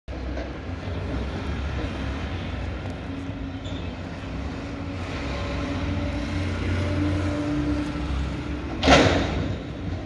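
Heavy diesel engines running, from a Mack McNeilus front-loader garbage truck working across the street and a school bus passing. The steady engine drone swells slowly, and a single sharp, loud burst stands out about nine seconds in.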